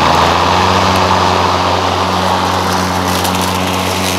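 Ryobi 20-inch 40-volt brushless battery lawn mower running steadily while mowing grass: an even electric-motor hum under a loud rushing of air from the spinning blade.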